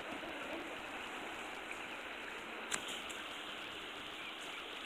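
Shallow creek water running over rocks, a steady rushing. One sharp click a little past halfway.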